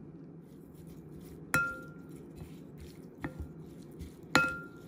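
Wooden spoon knocking against the side of a glass mixing bowl while mixing raw shrimp: two sharp clinks with a brief ring, about three seconds apart, and a few lighter taps between them.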